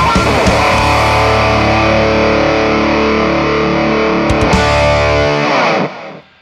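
Distorted electric guitar finishing a fast run, then a held chord that rings out for about four seconds and is cut off sharply near the end.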